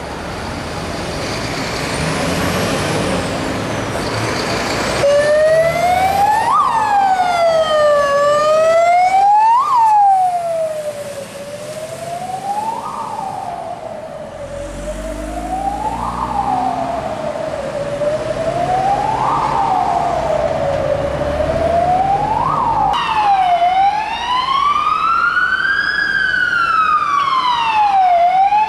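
Fire engine sirens on an alarm run. A siren sweeps up and down about every three seconds, then a slower wail rises and falls over about five seconds near the end, with the rumble of truck traffic underneath.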